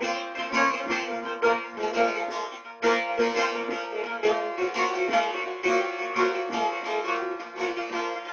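Long-necked bağlama (saz) played solo: a fast run of plucked and strummed notes in a continuous melody, with a brief pause just before three seconds in.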